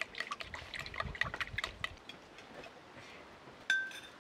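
Metal spoon stirring a wet, frothy batter in a glass bowl, clicking and scraping against the glass several times a second for about two seconds. Near the end comes one sharp ringing clink, the loudest sound.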